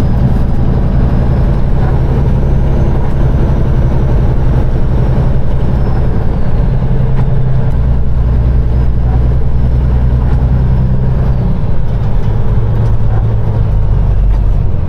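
Peterbilt 389 semi truck's diesel engine running hard, climbing a hill. Its low note shifts a little past the middle and again about three quarters through.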